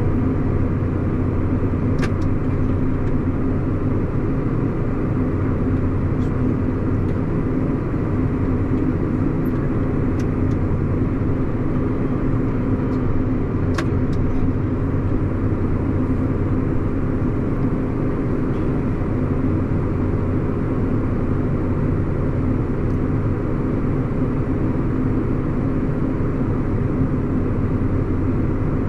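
Tractor engine running steadily at about 1200 RPM with its PTO engaged, driving the grain unloading. Two brief sharp clicks, about two seconds in and about fourteen seconds in.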